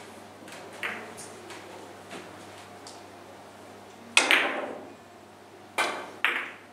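Carom billiard balls clicking: a sharp, loud cue strike on the cue ball about four seconds in, then two more sharp clicks of ball striking ball about half a second apart near the end. Fainter ticks come earlier.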